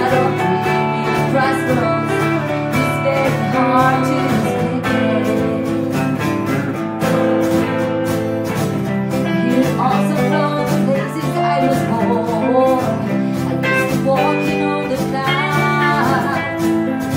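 Live song: a woman singing over her strummed acoustic guitar, with an electric guitar playing alongside.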